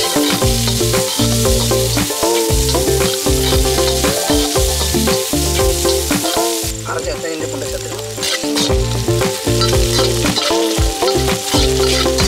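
Small onions, green chillies and curry leaves frying in hot oil in a black wok, with a steady sizzle and a metal spatula repeatedly scraping and stirring against the pan. Background music with a steady bass line plays underneath.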